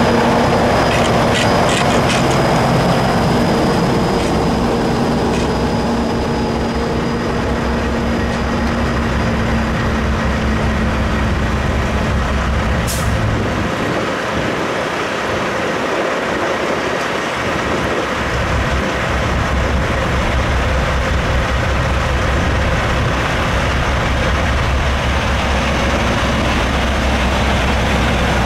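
Heavy diesel engines of Kenworth semi-trucks running as they roll past at low speed, with one short sharp hiss near the middle.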